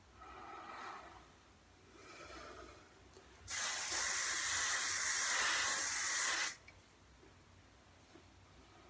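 Aerosol spray can hissing in one continuous burst of about three seconds that stops abruptly, spraying a light tan onto the hairline. Two fainter, shorter sounds come before it.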